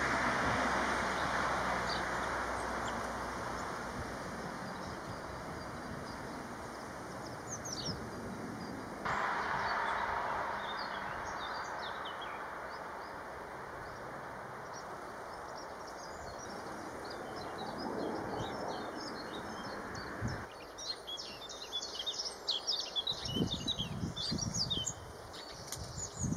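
Small garden birds chirping over a steady outdoor hiss. The chirps are sparse at first and come thick and fast in the last several seconds, with a few low thuds near the end.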